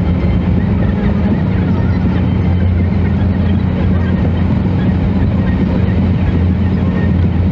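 A moving car's steady drone of engine and road noise, with an even low hum that does not change.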